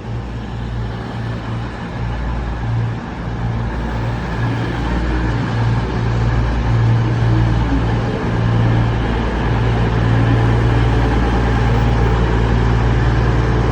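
Class 220 Voyager diesel multiple unit arriving, its underfloor diesel engines running with a steady low drone that grows gradually louder as it comes in.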